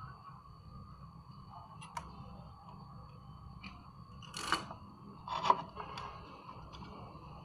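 Small tool and wire handling: a light click about two seconds in, then two short, sharp snips or clacks about a second apart past the middle, the second the loudest, over a steady low hum.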